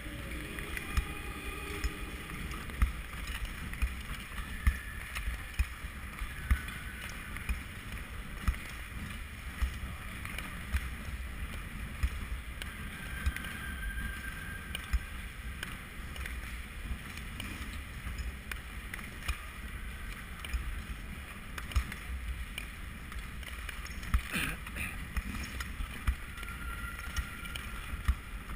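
Speed skate blades scraping the ice as the skater strokes, with louder pushes coming roughly once a second, under a steady rush of wind on the moving microphone.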